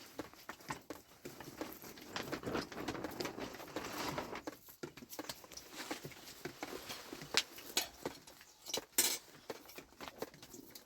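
Rustling and light clinks of objects being handled, with a few sharper clicks.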